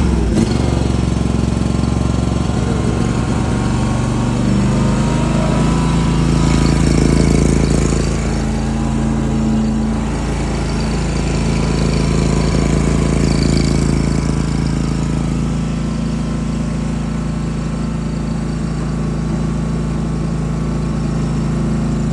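The 23 hp engine of an SL380 mini track skid steer running steadily just after a start on choke. It gets a little louder around seven seconds in, then settles slightly lower at about eight seconds.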